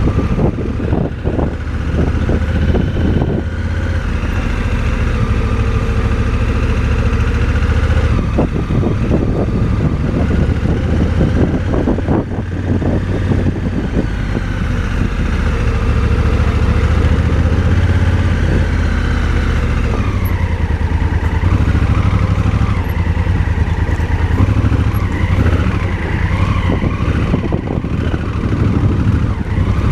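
Motorcycle engine running while riding on a dirt road, its pitch rising and falling with the throttle over a steady low rumble.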